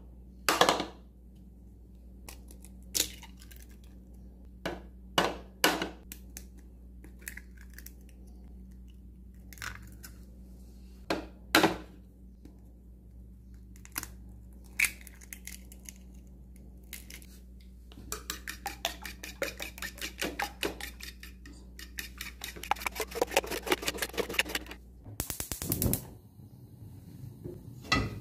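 Eggs cracked against the rim of a bowl: a series of sharp single taps as the shells break. Later the eggs are beaten briskly in the bowl, about ten quick strokes a second for several seconds, and a short loud burst follows near the end.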